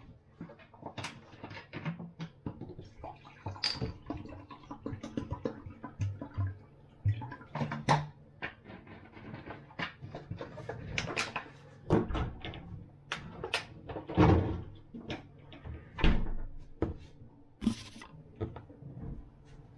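Irregular knocks, clicks and clatter from a plastic water bottle, a wine glass and other small things being handled and set down on a kitchen counter, with a few louder knocks in the second half.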